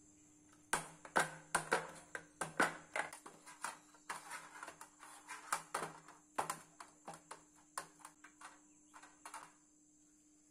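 Hands kneading soft rice-flour dough on a stainless steel plate: irregular sharp taps and slaps of hands and dough against the metal, a couple a second, stopping near the end. A faint steady hum lies underneath.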